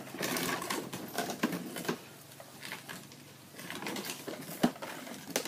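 Plastic toy vehicles rattling and clicking as they are played with, in uneven bursts with a few sharp clicks, the loudest about two-thirds of the way in.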